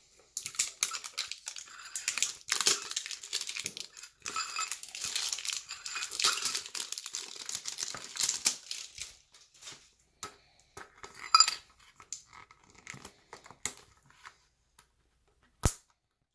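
Foil Pokémon booster-pack wrappers crinkling and rustling in the hands while metal Poké Ball tins are handled, with light clinks of the tin halves. The crinkling thins to scattered clicks after about ten seconds, with one sharp click near the end.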